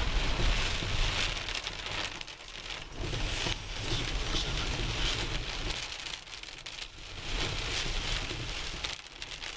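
Heavy rain beating on a car's roof and windshield, heard from inside the cabin while driving, a steady hiss that swells and eases every second or two.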